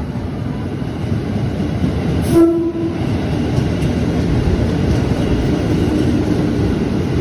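Commuter Line electric train running with a steady rumble that swells slightly, and one short horn note about two and a half seconds in.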